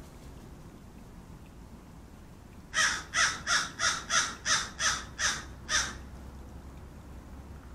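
Crow cawing in a quick series of about nine caws over roughly three seconds, starting about three seconds in.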